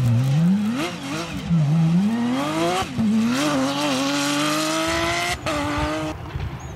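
Porsche 911 rally car's flat-six engine revving hard as it slides through a loose-surface corner and accelerates away. The pitch climbs through the gears with quick drops at each upshift, then the engine note stops abruptly about six seconds in.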